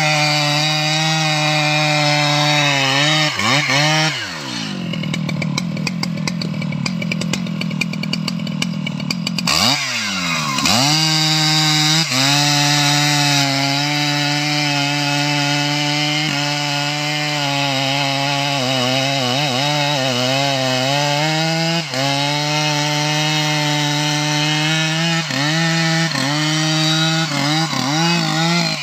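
Stihl MS 881 chainsaw running at high revs as it cuts into the base of a mahogany trunk. The engine note sags for several seconds from about four seconds in and climbs back to full speed around ten seconds in, with more brief wavers near the end.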